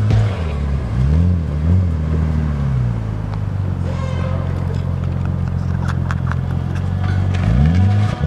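Car engine revving, its pitch rising and falling several times in the first few seconds, running steadily through the middle, then revving up again near the end.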